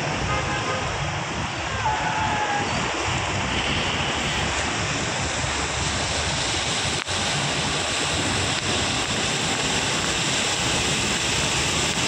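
Floodwater rushing over a submerged highway: a steady, continuous noise of moving water.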